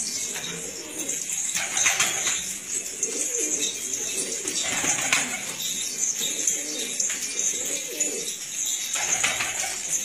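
Domestic pigeons cooing steadily, with a few brief flurries of wing-flapping about two seconds in, about five seconds in and near the end.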